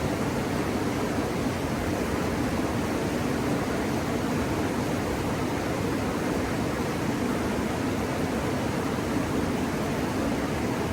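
Steady rushing of flowing river water where the Rio Grande and the Red River meet, an even roar that does not change.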